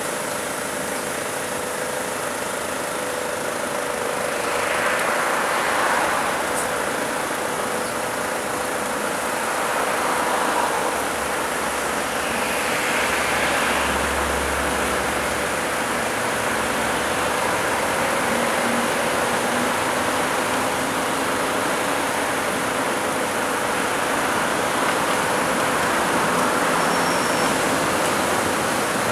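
Road traffic in a city street: a steady hum of vehicle engines, with several vehicles swelling past.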